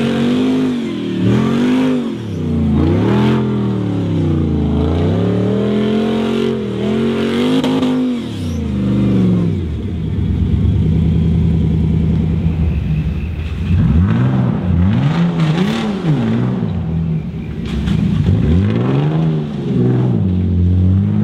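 Off-road competition 4x4 truck engine revved up and down over and over, with a steadier stretch of running near the middle.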